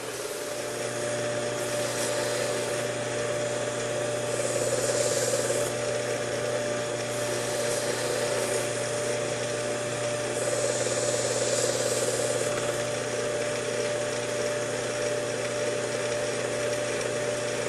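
Work Sharp 2000 belt sharpener running steadily while a knife is honed on its fine 3600-grit belt, a hiss swelling and fading with each pass of the blade across the belt, several times.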